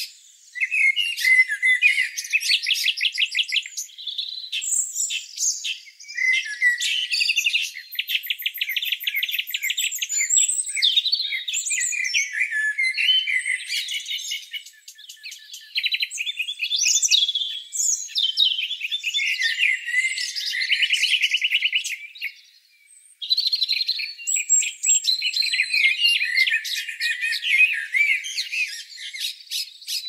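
Several songbirds singing and calling at once: overlapping high chirps and rapid trills that go on almost without a break, with one brief lull a little past two thirds of the way through.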